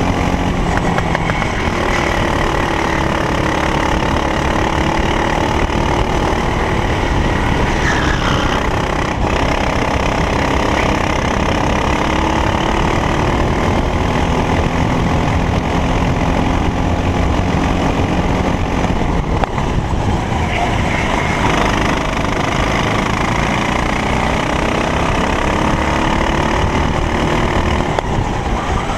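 Racing kart engine running hard, its pitch rising and falling over several seconds at a time as it accelerates and slows around the track.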